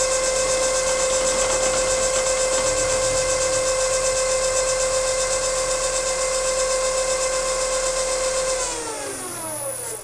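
South Bend milling machine spindle, driven by a VFD, running at speed with an end mill milling a pocket in aluminium: a steady whine of several tones over a cutting hiss. About 8.7 s in, the spindle is switched off and the whine falls in pitch as it coasts down, with a brief high whistle near the end.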